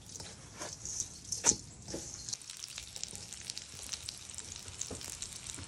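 Breaded pork tenderloin cutlets shallow-frying in oil on a flat-top griddle: a steady sizzle full of crackling pops, with one sharper pop about a second and a half in.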